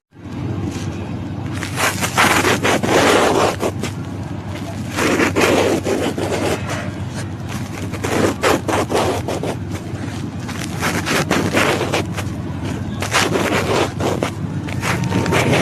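Kinetic sand being sliced with a knife: a scraping stroke every couple of seconds, over a steady low hum.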